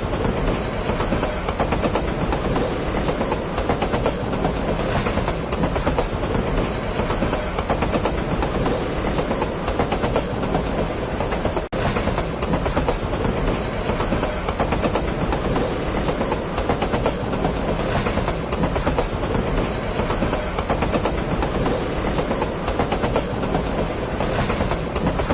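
A train running along the track, a steady noise that is loud throughout, broken by a brief drop about twelve seconds in.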